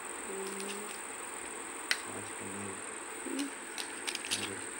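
A few sharp plastic clicks as a wireless earbud charging case is handled and its flip lid opened: one about two seconds in, several near the end. Under them runs a steady high-pitched whine.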